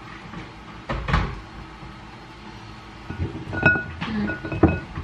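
Kitchen utensil clatter: a slotted spoon knocking and scraping in a crock pot and dropping boiled peanuts into a ceramic bowl. There is a knock about a second in, then a run of knocks and short ringing clinks in the last two seconds.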